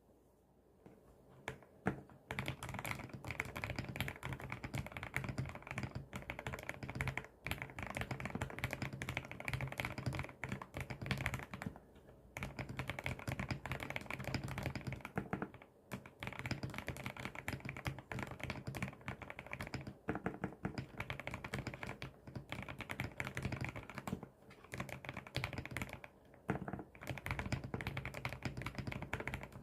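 Fast, continuous typing on a Tiger80 mechanical keyboard with Gateron switches: rapid key clacks, broken by short pauses every few seconds. The typing begins about two seconds in.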